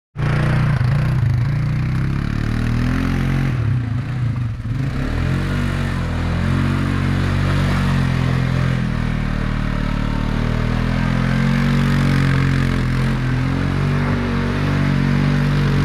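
A vehicle's engine running hard and steady as it spins donuts in mud, with a brief drop about four seconds in.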